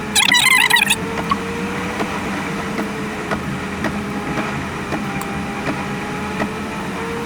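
Car driving, with engine and road noise making a steady drone whose pitch drifts slowly up and down as the speed changes.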